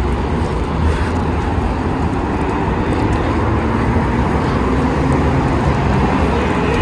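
Steady road traffic noise: a busy street with cars passing.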